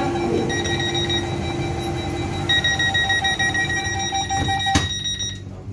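Door-closing warning on an FGC class 115 electric train: a rapid electronic beeping over a steady tone, with a sharp knock near the end as the doors shut.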